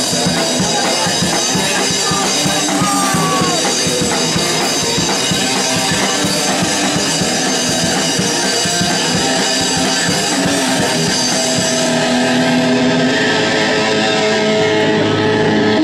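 Punk band playing live: fast drumming on a drum kit under electric guitar. About three quarters of the way through the playing thins and held guitar tones ring on.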